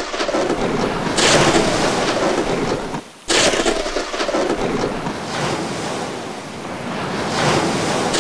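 Storm-at-sea sound effects: a dense steady roar of wind, heavy rain and surf. Two sudden loud crashes of thunder come about a second in and just after three seconds.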